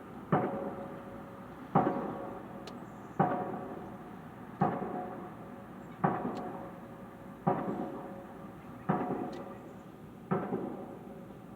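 Heavy, evenly paced pounding from construction work, eight strikes about one every second and a half, each ringing out before the next.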